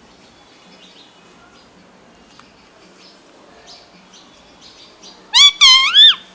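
Indian ringneck parakeet giving faint chirps, then three loud, rapid calls near the end, each rising and falling in pitch.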